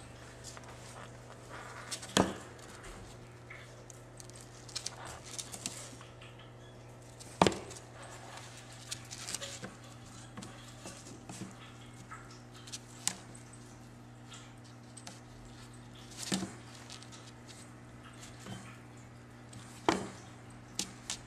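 A kitten playing with a feather wand toy: several sharp taps and thumps a few seconds apart as it pounces and lands on a hard surface, over a steady low hum.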